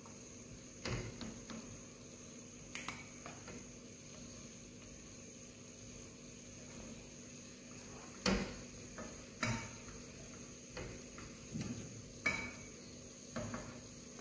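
A cooking spoon knocking and scraping now and then against a frying pan and a bowl as meatballs are lifted out of tomato sauce: about seven short, faint knocks, the loudest near the middle.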